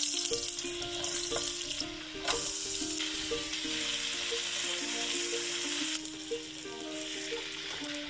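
Food sizzling in a hot frying pan, a steady hiss that shifts abruptly about two seconds in and drops quieter about six seconds in, over light plucked-string background music.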